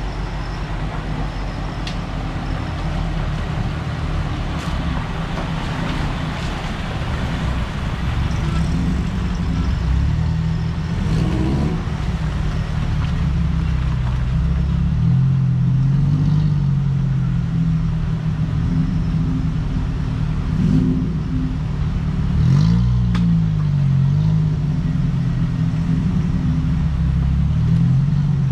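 Off-road 4x4's engine revving up and down under load as it climbs a muddy, rutted riverbank. Its pitch rises and falls repeatedly, with a few knocks along the way.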